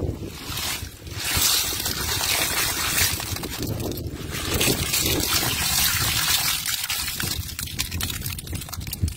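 Freshwater snails and mussel shells clattering and rattling as they are shaken out of a cast net onto the ground, a steady pouring rush of many small clicks.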